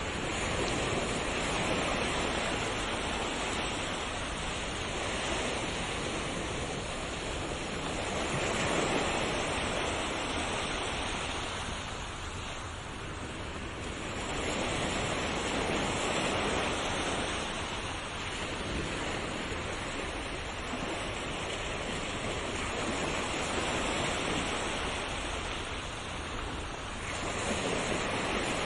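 Ocean waves breaking: a steady rush of surf that swells and eases about every seven seconds.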